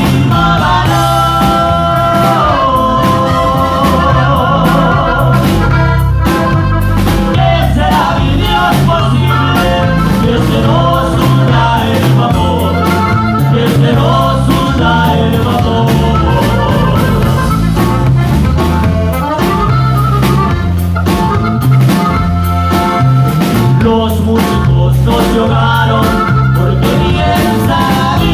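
Music: a song with a singing voice over a steady bass and drum beat.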